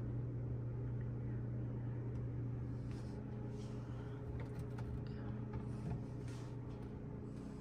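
Steady low electrical hum of a running Whirlpool WRF535SWHZ04 refrigerator, with a few faint clicks and rustles over it.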